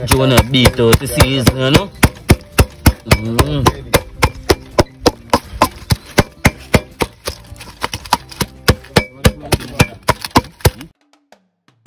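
Knife chopping food on a cutting board, a steady run of sharp strokes at about three a second, with a voice over the first couple of seconds. The chopping cuts off abruptly near the end.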